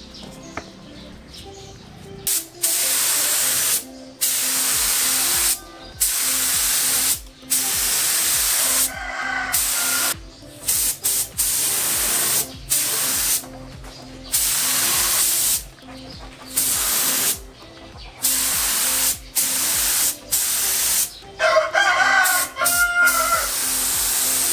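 Compressed-air spray gun hissing in repeated bursts of about a second or more, with short pauses between passes, as urethane clear coat is sprayed. A rooster crows twice in the background.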